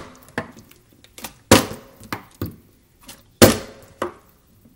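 Plastic water bottle flipped and thudding down on a stone countertop, missing the landing and tipping over. Two loud thuds, about a second and a half and three and a half seconds in, each followed by a lighter knock or two as it bounces.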